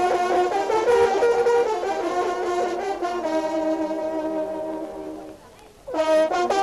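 Several French hunting horns play a fanfare together, holding and changing their notes. They break off briefly about five and a half seconds in, then start again.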